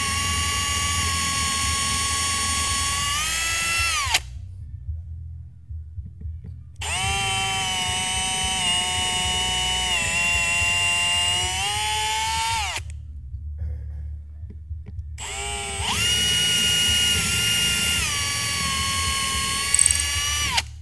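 Milwaukee Fuel cordless drill boring holes into a softwood board, its motor whining in three long runs with short pauses between. The pitch steps up and down during each run.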